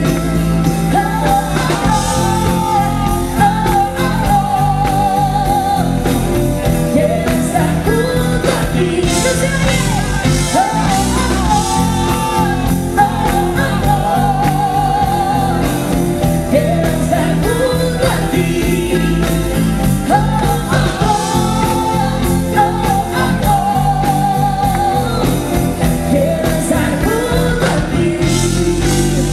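Live pop-rock band playing a song: a woman sings, holding some notes with vibrato, over electric guitar, bass guitar, keyboard and drum kit.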